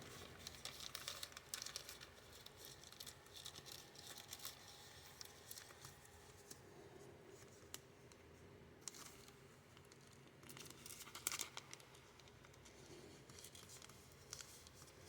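Faint rustling and crinkling of trading cards and pack wrappers being handled, with scattered soft ticks and a slightly louder patch of rustling about eleven seconds in.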